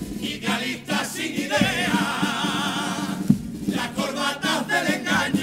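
Chirigota male chorus singing together in Cádiz carnival style, with a wide vibrato on the sustained notes and guitar accompaniment. The singing breaks briefly between phrases, about half a second in and again just after three seconds in.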